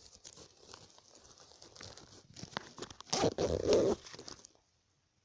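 Close handling noise: fabric and a small bag rustling and rubbing against the recording phone's microphone, with scattered clicks and one louder scraping rub about three seconds in.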